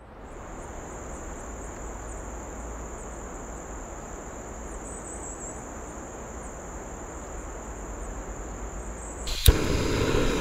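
Night-time chorus of insects: a steady, high-pitched trill with faint higher chirps over it. Near the end it cuts off with a click to a louder steady rushing noise.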